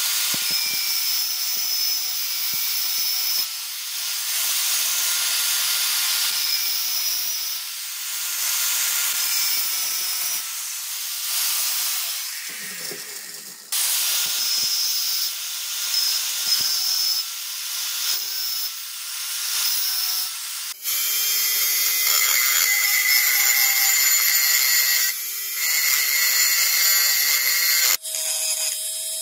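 Angle grinder with a thin green disc running and cutting radial grooves into a brass disc clamped in a vise, the grinding hiss rising and falling as the disc bites in and eases off. Near the end a small handheld rotary tool with a pink grinding stone runs against the brass.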